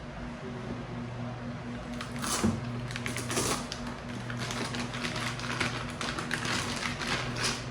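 Quick irregular clicks, taps and rustles of packaging and parts being handled while a scan tool kit is unboxed, starting about two seconds in and growing busier toward the end, over a steady low hum.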